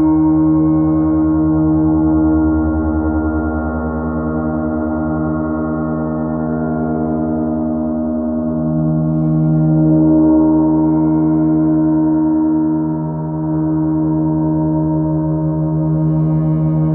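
A 50-inch Sound Creation gong drawn with a friction mallet, sounding a continuous rough drone: a strong low hum with a dense stack of overtones above it, swelling and easing slowly, with a brief dip in loudness near the end.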